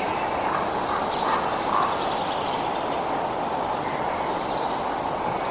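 Outdoor nature ambience: a steady rushing noise with a few short, high bird calls about one, three and four seconds in.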